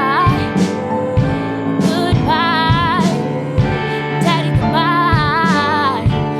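Country-pop song with a wordless sung melody over guitar and a steady drum beat.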